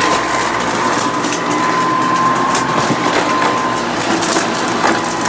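Hoover Custom Convertible upright vacuum cleaner running with a steady whine while the debris it sucks up rattles and clatters through it. The clatter is the debris striking the fan, which is at risk of breaking.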